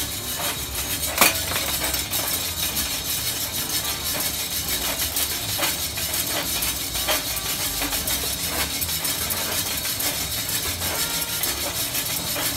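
Hand-cranked stainless-steel drum coffee roaster over the heat, a steady hiss with a handful of scattered sharp pops, the loudest about a second in: the beans starting first crack.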